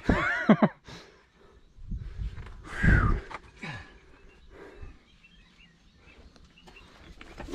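Scrambling over rough rock: scattered scuffs and knocks, with a louder bump about three seconds in, and faint bird chirps in the background.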